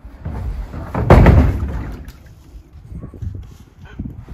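Large corrugated plastic water cistern being slid out of a van's load bed. A loud scraping rumble starts about a second in and dies away, followed by a couple of smaller knocks near the end.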